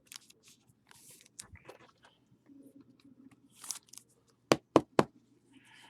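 Trading cards and their plastic packaging being handled: soft crinkling and scraping, then three sharp clicks in quick succession near the end.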